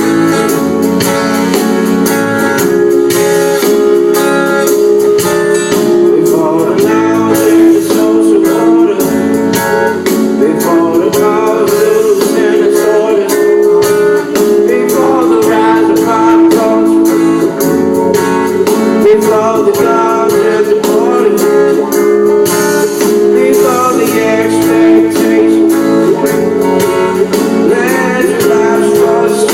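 Live music: a man singing with strummed guitar accompaniment, played through a sound-check PA.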